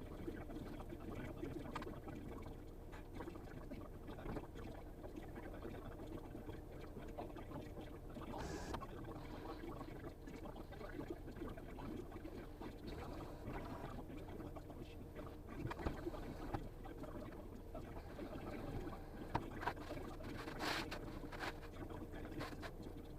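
Concrete mixer truck's diesel engine running steadily with the drum turning while concrete is discharged. A few sharp knocks and a brief hiss come in the last several seconds.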